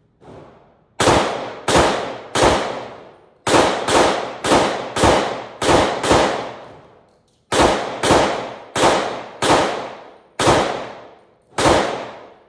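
.357 SIG pistol fired sixteen times in three quick strings, each sharp shot followed by a long echoing decay in the indoor range. A fainter report comes right at the start.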